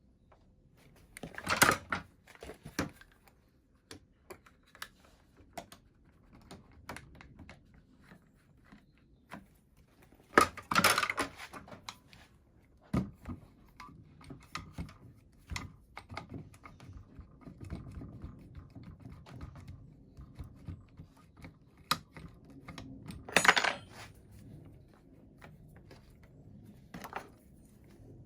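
Metal tools being handled to change a palm router's bit: scattered clinks, knocks and clatter from the spanner, clamps and router, with three louder clattering bursts near the start, just over a third of the way in, and near the end.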